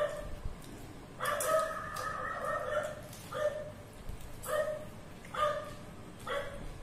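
A dog barking about six times, roughly once a second, with one longer drawn-out bark lasting over a second about a second in.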